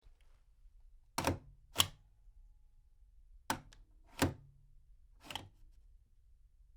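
A big office stamp thudding down five times, heard from medium distance: two pairs of sharp thuds and a lighter fifth.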